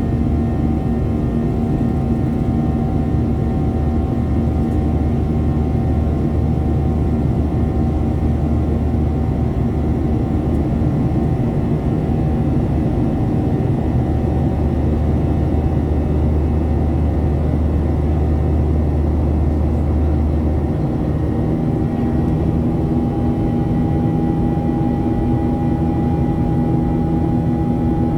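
Steady drone of a Boeing 737-700's CFM56-7B jet engines heard inside the cabin, with several steady tones over a rushing noise. About three quarters of the way in, a low hum drops out and the engine tones shift slightly higher.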